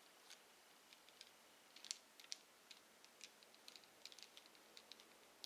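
Faint, irregular small clicks and ticks of a hex driver turning small screws into a scale RC truck's axle, with the metal tool and parts tapping against each other.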